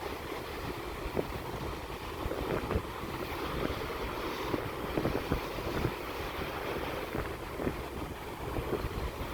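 Sea waves washing on the shore with wind rumbling on the microphone, and scattered light taps throughout.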